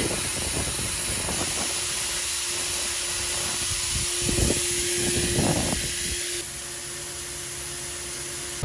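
Farm harvest machinery running steadily: a loud even hiss with a steady hum, a few low thumps, and a step down in level about six seconds in.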